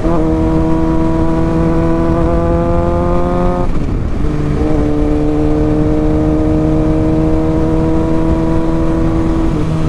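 Motorcycle engine pulling under way, its pitch slowly rising as it accelerates. There is an upshift about four seconds in that drops the pitch, and a shorter change near the end.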